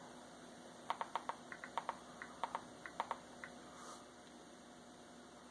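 A quick, uneven run of about fifteen small clicks over two and a half seconds: buttons pressed in quick succession to scroll through a Kodi menu.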